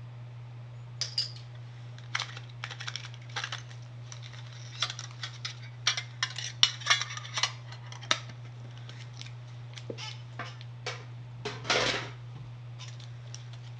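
Irregular clicks, taps and crinkles of a Pokémon trading-card tin's contents (coin and booster packs) being handled and taken out, with a longer crinkle near the end, over a steady low hum.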